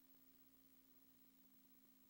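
Near silence: a faint steady low hum with light hiss.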